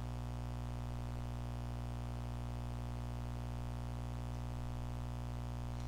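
Steady low electrical hum on the recording, unchanging, with no other sound.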